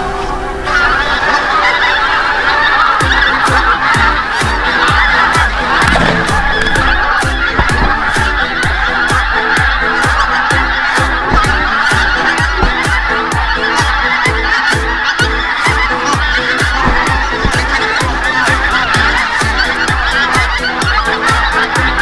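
A large flock of geese honking overhead in a dense, continuous chorus. A regular electronic beat runs under it and quickens toward the end.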